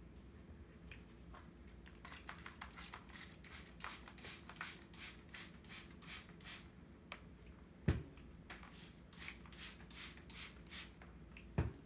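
Hand-pump spray bottle squirted again and again, about three or four quick sprays a second, in two runs with a pause between. A dull thump falls in the pause, and another near the end.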